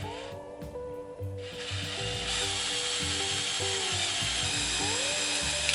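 A loud, steady rasping noise from workshop tool work starts about a second and a half in and cuts off suddenly near the end. Background guitar music plays under it.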